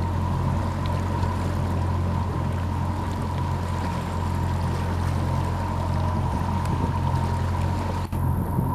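Sightseeing boat's engine running steadily, a low hum with water rushing beneath it; a brief dropout near the end.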